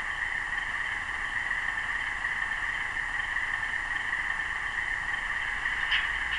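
Sound-decoder recording of an Alco 244 twelve-cylinder diesel idling, played through the small speaker of an HO-scale Atlas RS-1 model locomotive; a thin, tinny, steady drone. A brief click comes near the end.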